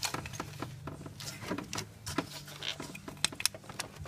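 Rubber spark plug wire boot being pushed and worked down onto a spark plug in a VW Golf Mk4 2.0 engine: soft rubbing with scattered small clicks, over a steady low hum.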